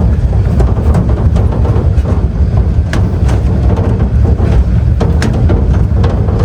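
Ride inside a vehicle on a rough off-road dirt track: a steady heavy rumble of engine and road, with scattered knocks and rattles as it jolts over the bumps.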